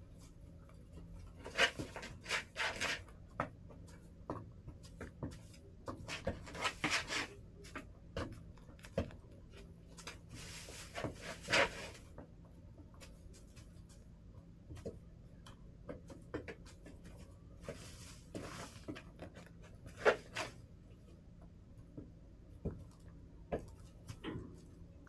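Chickens pecking and scratching: clusters of sharp taps and short rustling scrapes every few seconds, over a faint steady hum.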